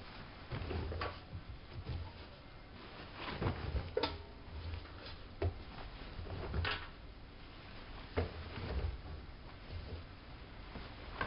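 Irregular knocks and clunks with low thuds, several strong ones spread unevenly, from a Siemens Siwamat IQ front-loading washing machine.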